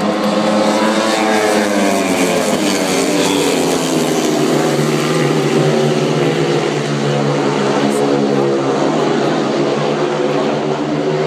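Several speedway bikes racing together, their 500cc single-cylinder methanol engines blending into one loud, continuous engine noise whose pitch rises and falls as the riders accelerate and ease off around the track.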